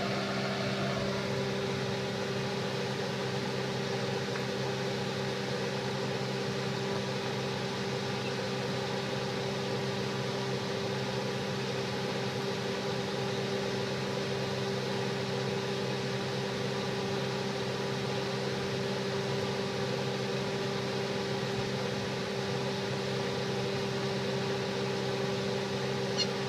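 A steady mechanical hum, a few low steady tones over an even hiss, as from a running fan or appliance, unchanging throughout.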